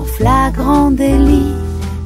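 Background music: a French-language pop song with guitar and a singing voice over a steady bass line.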